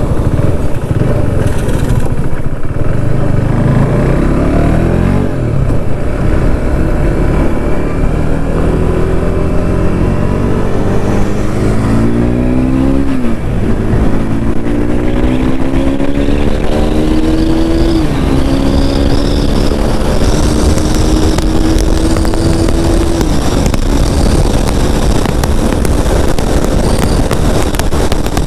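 KTM RC 390's single-cylinder engine and exhaust pulling hard through the gears: the pitch climbs in each gear and drops sharply at each of three upshifts, the last one holding near steady before it.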